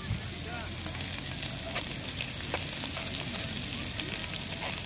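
Sliced sausages, potatoes and onions sizzling as they fry in a pan, stirred with a spoon that clicks and scrapes against the pan now and then.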